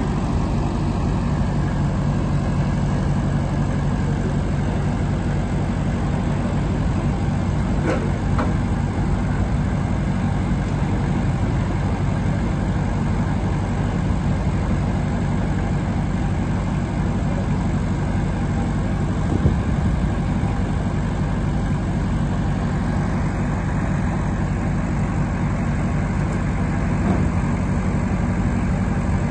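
Grey Ferguson (TEF20) tractor's four-cylinder diesel engine idling steadily with the tractor standing still.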